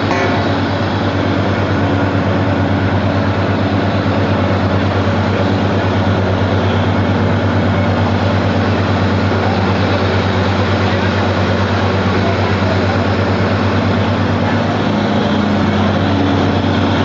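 DTH (down-the-hole) water-well drilling rig running: a loud, steady heavy-engine hum with a fast, even pulsing in its low note.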